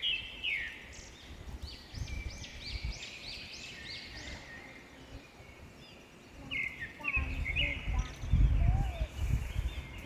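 Northern mockingbird singing: a run of short, arched, whistled notes repeated several times in a row, then a different note repeated a few times. A low rumble on the microphone comes in twice and is loudest near the end.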